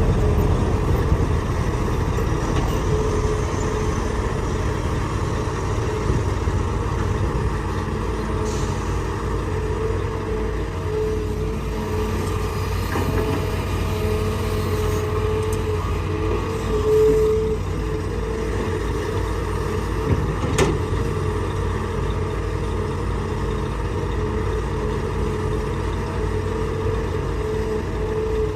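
Hitachi hydraulic excavator's diesel engine running steadily, a low rumble with a steady hum above it, and a single sharp knock about twenty seconds in.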